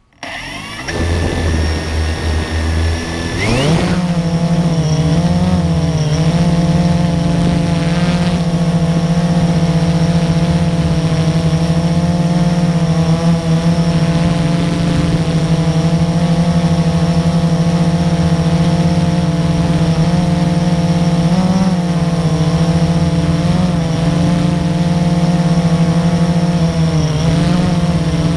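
Blade 350QX quadcopter's four brushless electric motors and propellers, heard from the camera mounted on the drone. The motors spin up at a low idle, then rise in pitch about three and a half seconds in as the throttle lifts it off. They settle into a loud, steady buzzing hum that wavers slightly as it flies.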